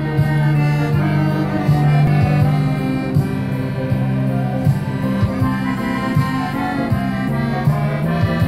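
A Scandalli chromatic button accordion played solo: a tune of moving higher notes over held low bass notes.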